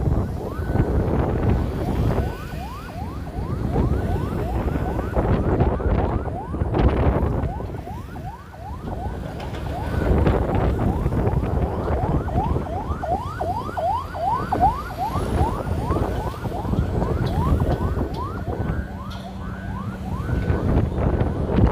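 Excavator-mounted vibratory pile hammer running against steel sheet piles: a heavy low rumble with a rapid series of short rising metallic squeals, two to three a second, like a siren.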